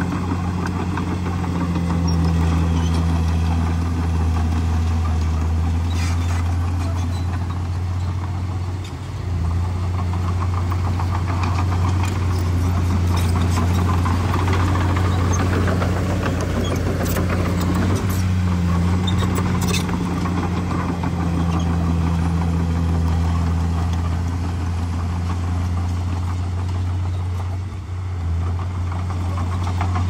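Komatsu D51PX bulldozer's diesel engine running steadily under load, with a few sharp metallic clanks. The engine sound dips briefly about nine seconds in and again near the end.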